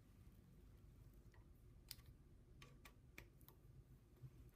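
Near silence with a few faint, irregular metallic clicks from a ratchet snugging down the rocker arm bolts on an inline-six cylinder head.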